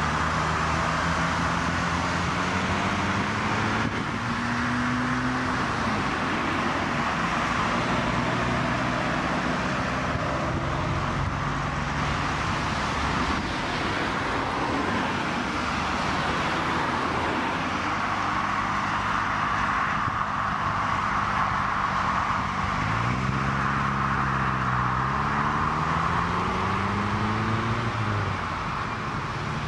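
A stream of cars driving past on a road, with steady tyre and traffic noise. Engines rise in pitch as cars accelerate by, and near the end one engine revs up, eases off briefly and revs up again.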